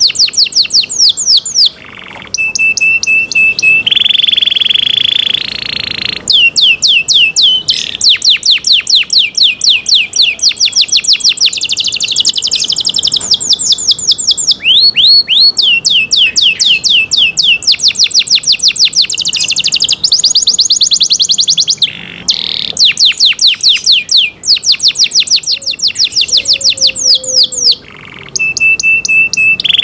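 Domestic canary singing: long, rapid trills of quick falling notes, with a few held whistled notes and short pauses between phrases.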